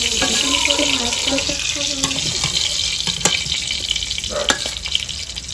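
Hot oil sizzling with a steady hiss in a kadai as fried sarputi fish are lifted out with a spatula, with two sharp clicks of the spatula against the pan past the middle.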